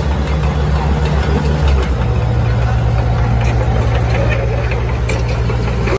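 Diesel engine of a padfoot soil compactor roller running steadily as the roller moves over graded dirt. Its low engine note changes about two seconds in, and a few light ticks sound in the second half.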